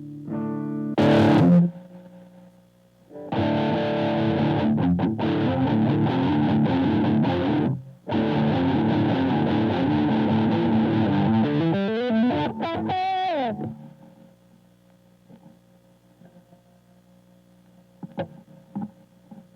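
Electric guitar through a Boss ME-80 multi-effects unit on a distorted patch: a chord rings and decays, a short stab follows, then two passages of fast, driving riffing with a brief stop between them, ending in a sliding note. The last few seconds are quiet apart from two small clicks.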